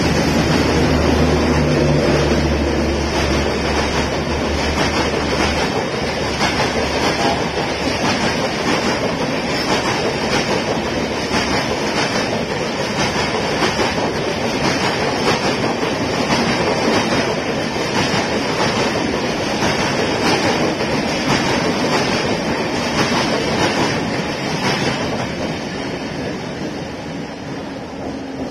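Tejas Express coaches passing at speed: a steady rolling rush of steel wheels on rail with a rapid clickety-clack over the rail joints. A low hum runs under it for the first few seconds, and the noise fades near the end as the last coaches go by.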